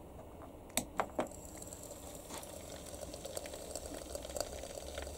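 Three quick clicks about a second in as the battery connector is plugged in and switched on, then a homemade smoke generator's heating element starts to sizzle faintly in its smoke fluid, the crackle slowly growing as the element heats up.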